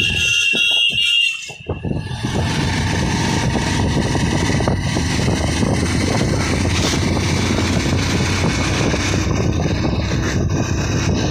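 Wind buffeting the microphone outdoors: a loud, steady low rumble with gusty unevenness, briefly dropping away a little over a second in.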